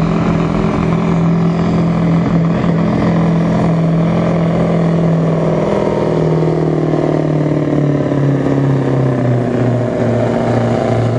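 Scania V8 diesel of a pulling truck at full throttle under load, a steady deep rumble. Its revs sink slowly over the second half.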